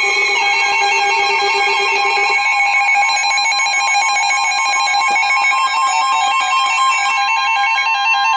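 Several weather alert radios sounding their alarms together for a severe thunderstorm warning: a steady warning tone layered with rapidly pulsing electronic beeps. One lower tone drops out about two seconds in.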